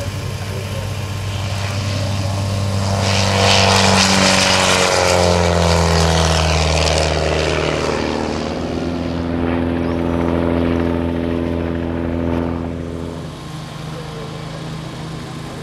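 Starduster aerobatic biplane's piston engine and propeller at full power on a low, fast pass. The engine note grows louder as it approaches and drops in pitch as it goes by about four to five seconds in. It then holds a steady note as the plane climbs away, and turns quieter about thirteen seconds in.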